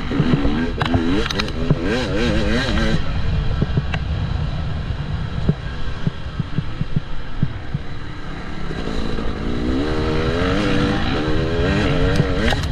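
A KTM 300 EXC's single-cylinder two-stroke engine revving up and down as the enduro bike is ridden. A few seconds in it drops back off the throttle to a low, steady note with some knocks. Near the end it picks up again, revving up and down.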